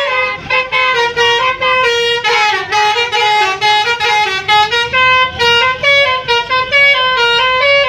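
Indonesian 'telolet' multi-tone bus horn playing a quick tune, its loud horn notes stepping up and down in pitch without a break.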